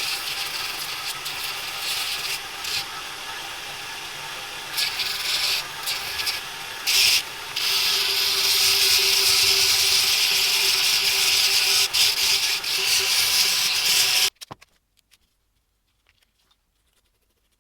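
Continuous abrasive scraping, as of sanding, with a few short breaks about five to seven seconds in, stopping abruptly about fourteen seconds in.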